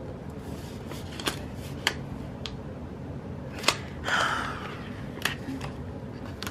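Small clicks and taps from handling planner pages and sticker sheets, a few spaced seconds apart, with a short papery rustle about four seconds in.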